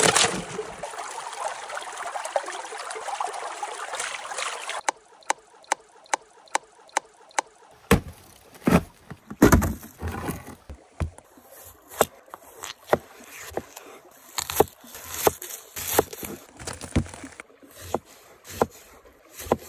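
Water hissing and sloshing at the edge of river ice for about five seconds. Then come separate sharp knocks and a few heavier thuds as a thick wooden slab is set down on the ice. Near the end a kitchen knife chops through a lemon onto the wooden board in even strokes, about one every two-thirds of a second.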